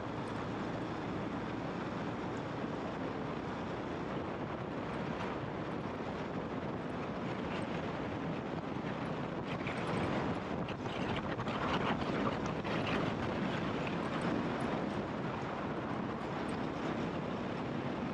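KTM trail motorcycle running steadily while being ridden, its engine note mixed with wind and riding noise. About ten seconds in it grows a little louder for a few seconds, then settles back.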